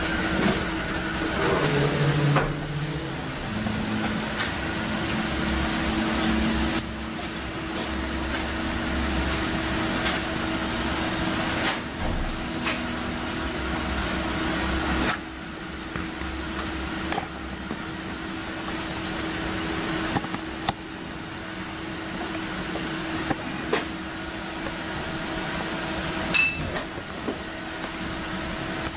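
A steady mechanical hum, like a small motor or fan running, with a few scattered light clicks and knocks.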